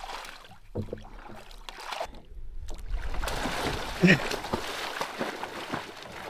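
Water splashing and sloshing as a swimmer splashes water out of a swamped canoe and heaves himself in over the side. The splashing picks up about three seconds in, and there is a short loud sound just after four seconds.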